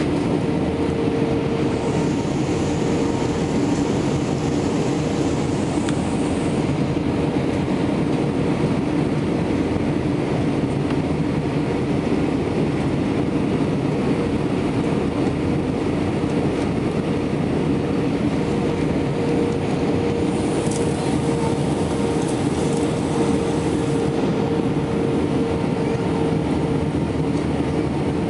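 Steady cabin noise of an Airbus airliner in flight, heard inside the cabin at a window seat over the wing: the even drone of the jet engines and rushing air, with a constant held hum.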